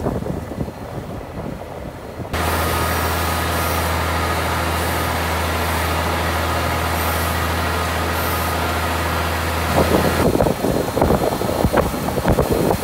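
Tractor running steadily with an even low hum while pulling a rotary row-crop cultivator through the field. The sound starts from a quieter windy stretch and cuts in abruptly about two seconds in; near the end it gives way to an uneven clatter of the cultivator's rotary hoe stars churning wet soil.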